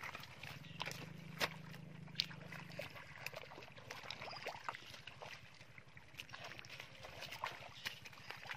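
Bare feet squelching and sloshing in soft wet mud and shallow muddy water, with scattered small clicks and splats.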